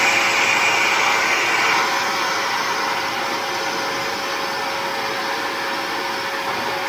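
Small handheld vacuum cleaner run in reverse as a blower, a steady whooshing motor noise with a constant whine, blowing cold air on a 3D printer's hot end to force a thermal runaway shutdown. It eases slightly about two seconds in.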